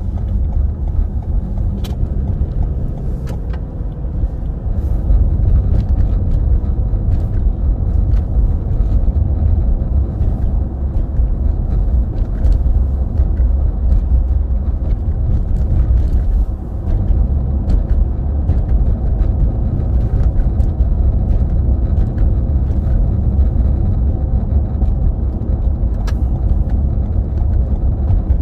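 Steady low rumble of a car driving along a road: tyre and engine noise with no pitched tone standing out.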